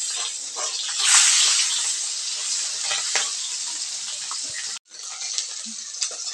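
Fish pieces frying in hot refined vegetable oil in a steel karahi: a steady sizzle with sharp crackles of spattering oil, swelling about a second in. It cuts out briefly near the end.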